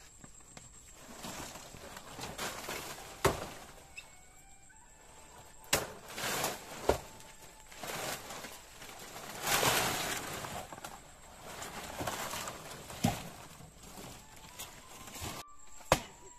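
Blades chopping at dry palmyra palm leaf stalks: a handful of sharp strikes several seconds apart, mixed with the rustle and crackle of dry fronds being pulled away. A bird chirps faintly in the background.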